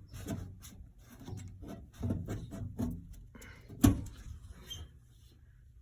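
Handling noises at an electrical breaker panel being opened: a series of short clicks and rubs, with one sharp knock about four seconds in.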